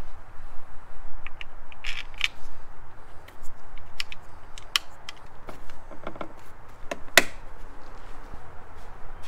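Plastic alternator belt cover being handled and seated by gloved hands: scattered light clicks and taps of plastic, with one sharper click about seven seconds in.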